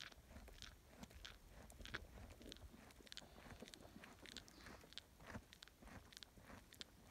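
Highland cattle calf chewing bread close up: faint crunching chews, about two a second.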